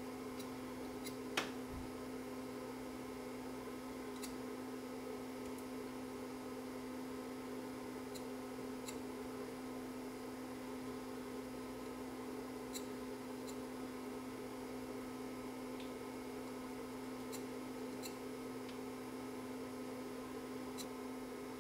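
Steady electrical hum with faint scattered ticks and one sharper click about a second and a half in.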